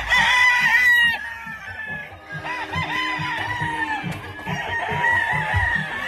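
Gamefowl roosters crowing, one long drawn-out crow after another, the loudest right at the start and more following, overlapping, through the rest.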